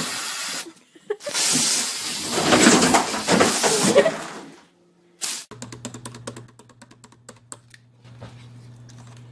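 A loud hissing rush of noise, then after about five seconds rapid irregular clicking like typing on a computer keyboard over a low steady hum.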